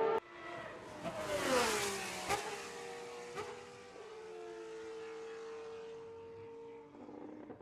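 Superleague Formula Panoz DP09B race car's 4.2-litre V12 passing at speed, its pitch dropping sharply as it goes by about a second and a half in, with a sharp crack just after. The engine then holds a steady high note as it pulls away down the track.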